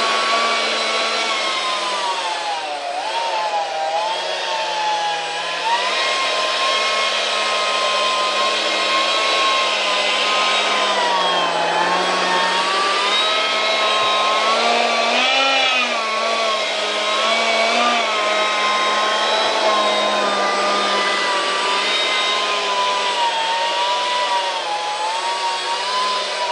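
Detrum 70mm electric ducted fan running at high speed, a loud whine whose pitch sags and rises again several times as the throttle is varied.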